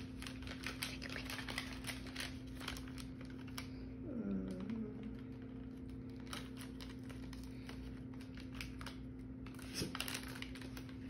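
Paper crinkling and rustling in small irregular clicks as a gift wrapped in printed paper is unfolded and pulled open by hand, over a steady low hum. A short falling voice-like sound comes about four seconds in.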